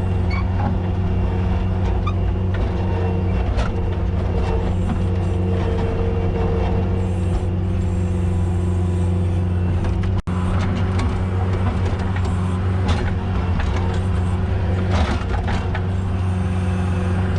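Skid steer engine running steadily with a constant drone, with occasional knocks and scrapes from the bucket working slabs of broken concrete. The sound cuts out for an instant about ten seconds in.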